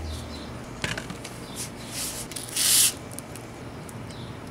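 Handling noises of sandpaper being readied on a sanding block: light clicks and rustles, with one louder short rasp of paper about two and a half seconds in.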